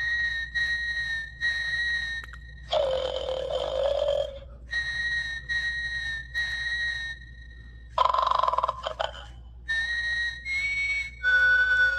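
Christmas snoring gnome playing its snore: a noisy snore, then a long whistling breath out, repeating about every five seconds.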